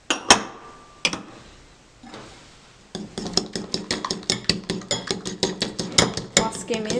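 A metal spoon clinks twice on a glass bowl and a ceramic bowl, then from about three seconds in it beats a creamy mixture briskly in a ceramic bowl, clinking against the bowl about five times a second.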